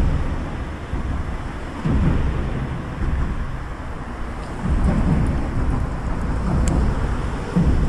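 Wind buffeting an action camera's microphone: a low, rumbling noise that swells in gusts and eases every couple of seconds.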